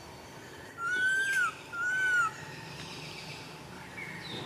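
Young monkey crying: two high, whistle-like calls about a second in, each rising and then falling in pitch and lasting under a second, with a short gap between them.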